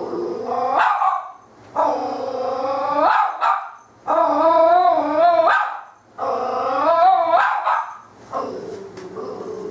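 American Cocker Spaniel puppy barking in alarm at a robotic toy cat: a string of long, drawn-out barks, each a second or more, rising and falling in pitch, about one every two seconds.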